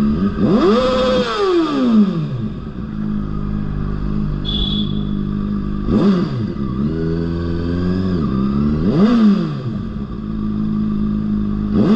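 Sport motorcycle engine running as the bike rides through city traffic, revved up and back down four times. A brief high beep sounds about halfway through.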